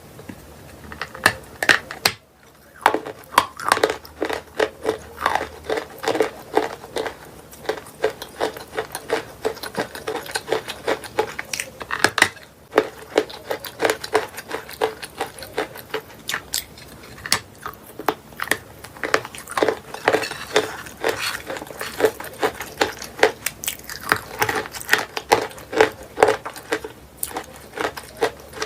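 Close-up biting and chewing of crunchy chalk from a chalk bowl: a dense, irregular run of sharp crunches and crackles, with a short pause about two seconds in.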